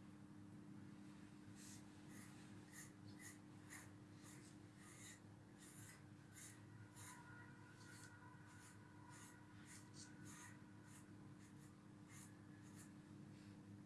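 Faint, scratchy strokes of a brush drawn through a long-haired dog's coat, coming irregularly about two a second, over a low steady hum.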